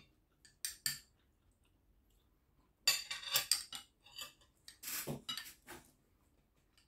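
Metal cutlery clinking and scraping on a ceramic plate while eating: two quick clinks in the first second, then two longer bursts of clinking about three and five seconds in.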